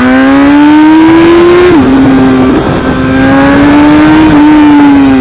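Honda CBR1000RR's inline-four engine at full throttle through a very loud exhaust. The pitch climbs as it accelerates, drops sharply at an upshift about two seconds in, then climbs again.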